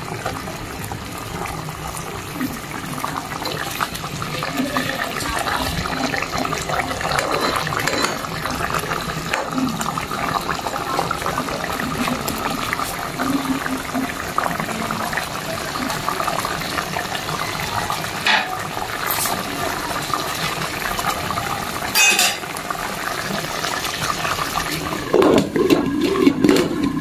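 Coconut cream bubbling at a simmer in a pot, with a metal spoon stirring and clinking against the pot now and then. Near the end a glass lid knocks and clatters as it is set on the pot.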